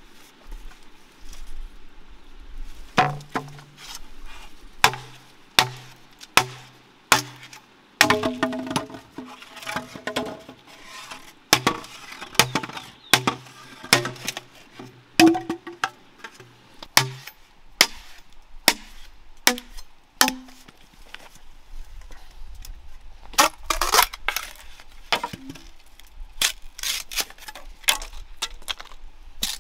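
A knife chopping: a long series of sharp strikes, about one or two a second, many with a short low ring. Near the end they become quicker, lighter knocks.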